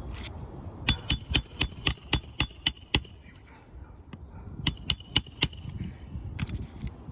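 Hammer blows with a metallic ring, driving roofing nails into an asphalt shingle: a quick run of about nine strikes in two seconds, a pause, then four or five more.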